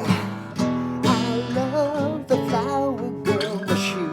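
Song accompaniment: acoustic guitar strumming, with a wavering melody line over it from about a second in.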